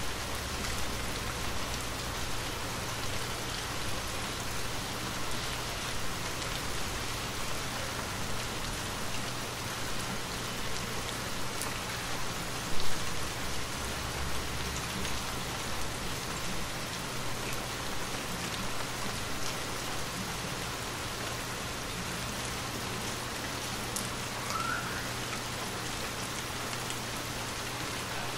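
Steady rain falling, an even hiss of many drops without let-up, with one brief louder thump about halfway through.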